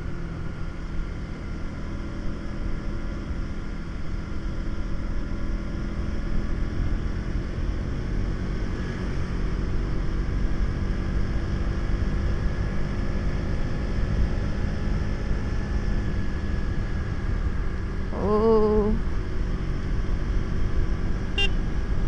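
KTM Duke motorcycle engine running at a steady cruise, with low wind rumble on the microphone. A short wavering tone sounds briefly about eighteen seconds in.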